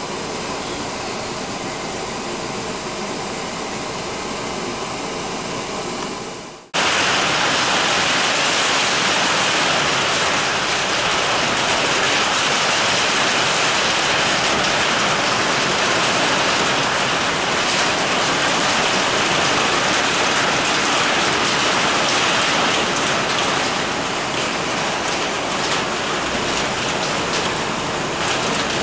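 Rain: a steady hiss at first, then, after a cut about seven seconds in, heavy rain pouring down on a metal carport roof, loud and steady.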